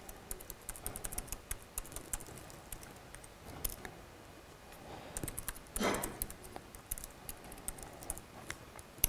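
Typing on a laptop keyboard: bunches of quick, light keystrokes with pauses between them, and one short louder sound about six seconds in.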